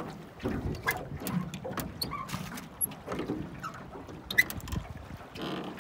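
Wooden oar knocking and scraping against a riveted metal rowboat and its oarlock, with short squeaks and water sloshing, as the boat is pushed off a wooden post. The knocks come irregularly, several in a few seconds.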